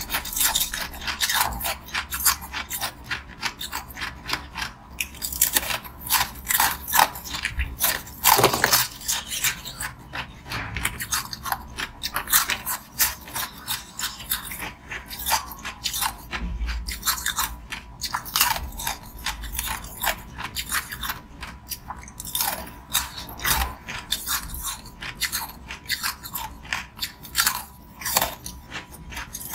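Close-miked biting and chewing of thin shells of green-tinted ice: a dense run of sharp crunches and crackles, with a few louder bites standing out.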